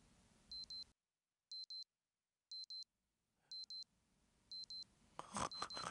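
Electronic alarm beeping: pairs of short, high beeps repeating about once a second, the wake-up signal for a sleeper.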